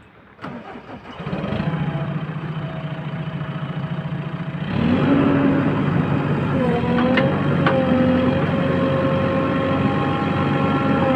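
A heavy diesel engine comes on about a second in and runs steadily, then grows markedly louder about five seconds in, as if revved up or put under load.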